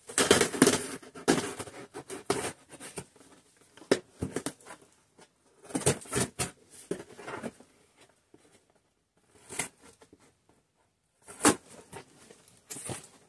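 Scissors blade slitting the packing tape along the top of a cardboard box and scraping over the cardboard, in irregular bursts with short pauses, the longest run in the first two seconds and a sharp one near the end.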